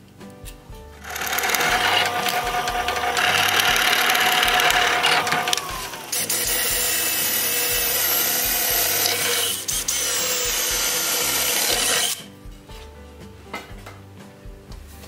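Power drill boring a hole through a thick wooden wagon part, running for about eleven seconds with its whine changing pitch about halfway through, then stopping.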